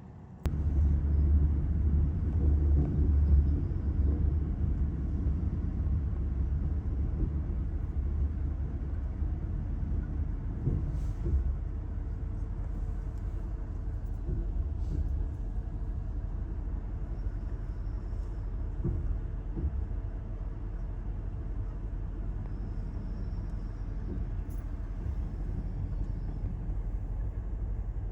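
Low, steady rumble of a train, starting suddenly and easing slightly after about ten seconds, with a few faint ticks.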